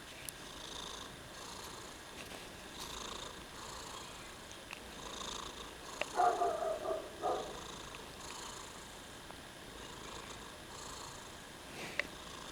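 A sleeping cat snoring, with a soft wheezy snore on each breath. Just past the middle comes a louder pitched sound lasting about a second, and a short click sounds near the end.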